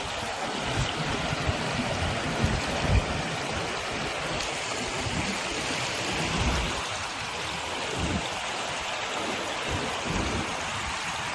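River water rushing out through concrete culvert pipes and churning downstream, a steady rushing hiss. Wind gives irregular low rumbles on the microphone.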